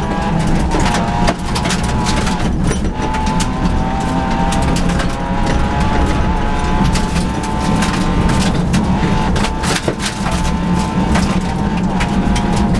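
Rally car engine running hard at high revs, heard from inside the cabin, with gravel and stones clattering against the underbody in many short clicks as the car drives a gravel stage. The engine note holds fairly steady, dipping briefly about a second in and again near ten seconds.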